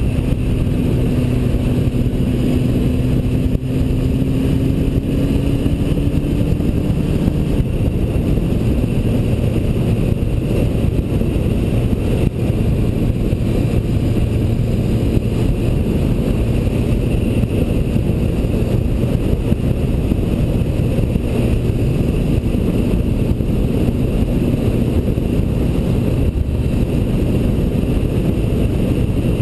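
Yamaha motorcycle engine running at a steady cruising speed, with wind and road noise on the microphone. The engine note rises a little over the first several seconds, then holds steady.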